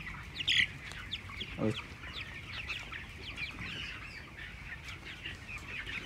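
A flock of 26-day-old broiler chickens peeping continuously in many short, high calls, with one louder call about half a second in.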